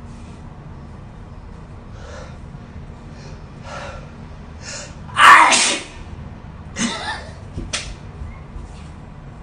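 A person sneezing: a few quick breaths build up, then one loud sneeze about five seconds in, followed by two shorter sharp bursts.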